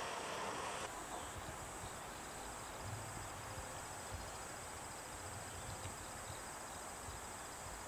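Crickets and other insects chirring: a steady high drone with an evenly pulsed trill. For about the first second a camp stove burner hisses under a steaming pot, then drops away.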